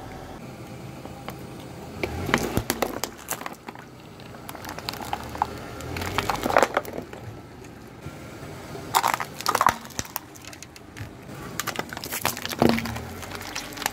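A car tyre rolling over and crushing small objects on asphalt: four separate bursts of cracking and crunching. The last burst, near the end, comes as the tyre reaches an aluminium drinks can.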